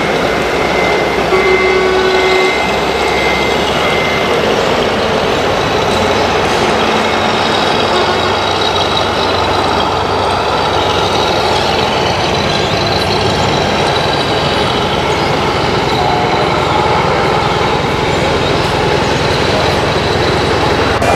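Sound modules in radio-controlled scale model trucks playing simulated truck engine sounds, with a run of short high beeps in the first few seconds.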